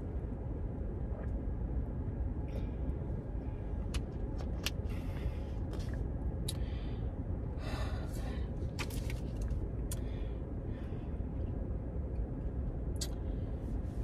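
Steady low rumble inside a car cabin, with scattered small clicks and a few short crinkling rustles as a plastic water bottle is handled and drunk from.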